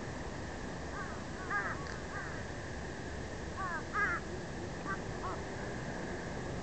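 Crows cawing in three short bouts of several harsh calls each, over a steady hiss of wind and surf.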